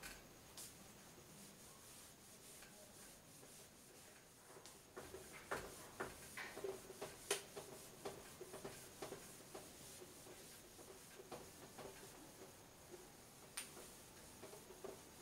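Cloth duster wiping marker off a whiteboard: faint rubbing strokes with a few light knocks, busiest in the middle.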